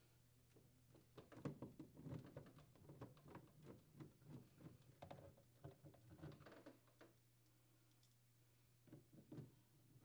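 Faint clicks and scrapes of a Phillips screwdriver turning screws into a plastic evaporator fan motor cover. The small irregular ticks run from about a second in to about seven seconds, with a brief cluster again near the end.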